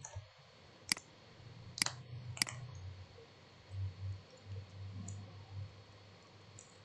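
Computer mouse clicking three times, sharp single clicks about a second apart, followed by a faint low hum.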